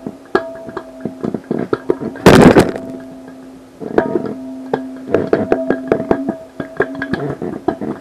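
Plucked string music: many sharp plucks and clicks over two held notes. About two seconds in comes a loud burst of noise lasting about half a second.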